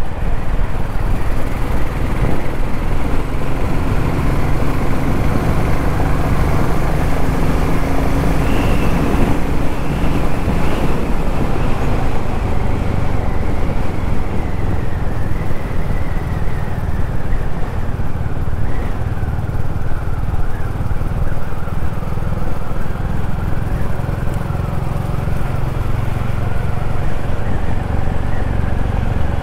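Royal Enfield Classic 350's single-cylinder engine running at road speed under way, its pitch wandering slightly with the throttle.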